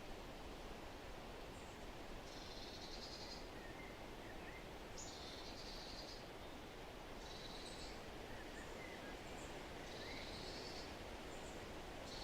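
Faint outdoor ambience: a steady hiss with a short, high trill that repeats about every two seconds, like an insect or small animal calling, and a few faint chirps.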